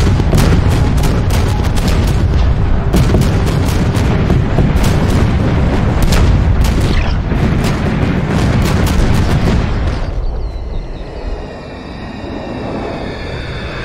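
Artillery bombardment: howitzers and cannon firing in quick succession, many sharp blasts over a continuous low rumble. After about ten seconds the firing eases to a rumble with high wavering tones.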